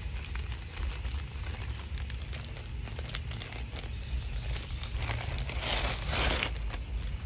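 Plastic shipping bags crinkling and rustling as they are handled, then a plastic poly mailer torn open with a loud rip about five to six seconds in.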